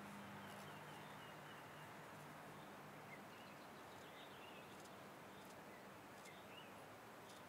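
Near silence: faint room tone with a few faint, distant bird chirps and some soft clicks.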